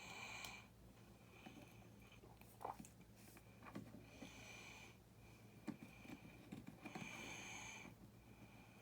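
Faint breathing close to the microphone, a soft breath about every two to three seconds, with scattered small clicks and taps of plastic building pieces being handled.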